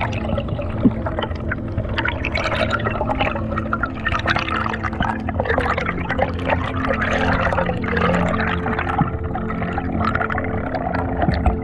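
Underwater sound picked up by a camera in its housing during a dive: water rushing and bubbling, with many small crackling clicks over a steady low hum.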